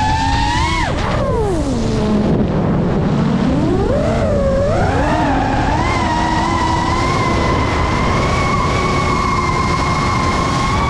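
FPV drone's brushless motors and propellers whining over a rushing noise. The pitch falls steeply about a second in as the motors slow for a dive, stays low for a couple of seconds, then climbs back and holds steady and high.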